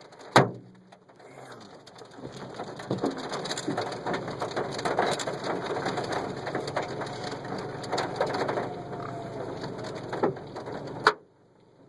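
Hailstones pelting a car's body and windshield, a dense rattle of countless small impacts with a few louder knocks. It builds up about two seconds in and cuts off suddenly near the end.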